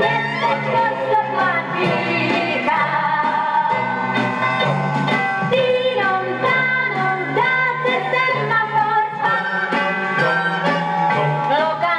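A 1971 Czech pop song with dance-orchestra accompaniment, in a stretch without sung lyrics: melodic instrumental lines over a steady beat.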